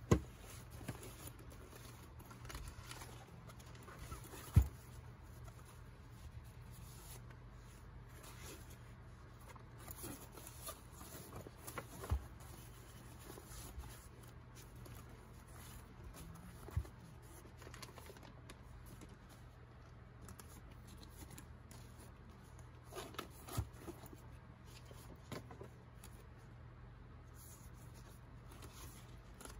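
Quiet rustling and shuffling as a fabric backpack is packed and sheets of lined paper are handled. About five sharp knocks and bumps from items set down or bumping the bag are spread through it.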